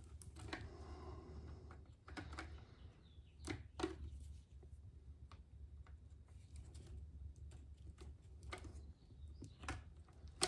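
Scattered small clicks, taps and a soft scrape of hand tools on the parts of an RC truck's drive axle as a stuck piece is being cut away.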